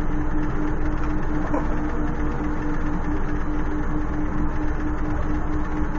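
Casino floor din: a steady wash of slot-machine noise, with a low tone pulsing evenly about four to five times a second.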